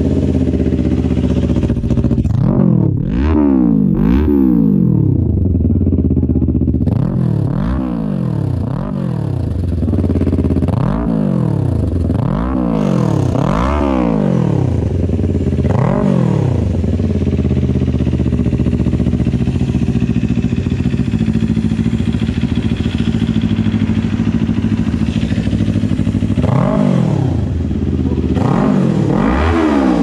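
Kawasaki Ninja 400's parallel-twin engine through an M4 full-system exhaust, revved in a quick series of throttle blips, the revs rising and falling about once a second. It then settles to a steady idle before more blips near the end.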